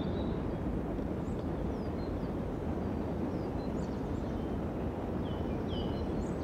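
Outdoor ambience: a steady low rumble of wind on the microphone, with short high bird chirps and whistles scattered throughout and a few louder ones near the end.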